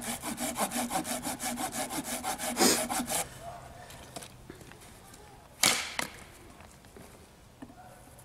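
A hand saw cutting through a branch of firewood, fast even back-and-forth strokes at about four or five a second that stop about three seconds in. A few seconds later comes a single loud knock.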